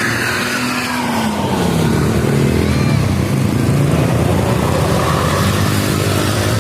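Road traffic dominated by a large bus engine passing close by, its pitch falling at first and climbing again about halfway through.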